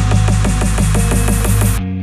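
Electronic background music with a fast, even beat and a rising hiss that cuts off suddenly near the end, giving way to held tones.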